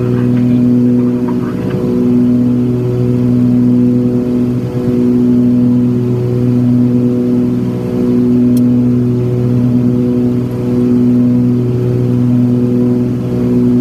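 Cabin drone of a Cessna 340's twin turbocharged Continental six-cylinder engines and propellers in cruise-climb power. The steady hum swells and fades in a slow beat about every one and a half seconds, the sign of the two engines' propellers running slightly out of sync.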